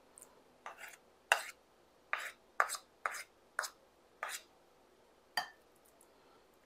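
Metal serving spoons clinking and scraping while dishing curried rice with chicken into a serving bowl: about eight short, irregular clinks, the last and sharpest a little past five seconds in.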